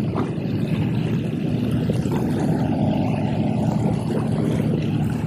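Propeller engine of a high-wing single-engine light aircraft droning steadily as it approaches, growing a little louder in the first second.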